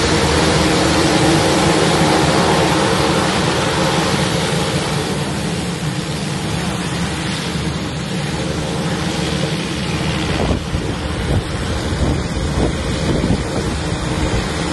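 Beechcraft King Air twin turboprop engines running at taxi power, a steady propeller drone that fades about a third of the way through. Gusty wind buffets the microphone more and more in the second half.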